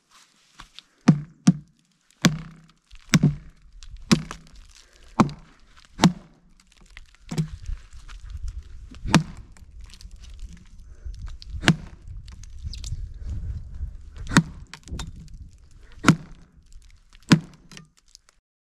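A heavy knife chopping into the dry, split wood of a dead standing tree trunk: about a dozen sharp strikes, roughly one a second at first and then further apart, splitting off strips of wood. A low rumble comes in under the strikes about halfway through.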